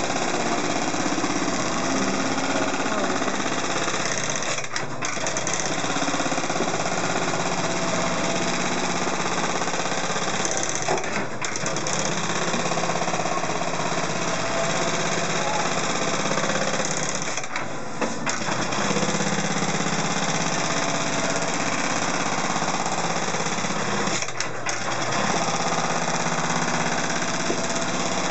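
Juki AMS-221EN-3020 computer-controlled pattern sewing machine stitching at speed, a rapid, steady needle clatter as the clamp frame carries the straps under the needle. The stitching breaks off briefly four times, about every six or seven seconds.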